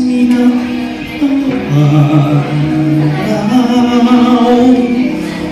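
A man singing a Tagalog song into a microphone with musical accompaniment, holding long notes.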